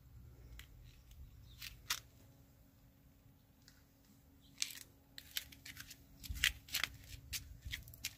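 Handling noise from a handheld camera being moved around a car's interior: scattered small clicks and rustles, more frequent in the second half, over a faint steady hum.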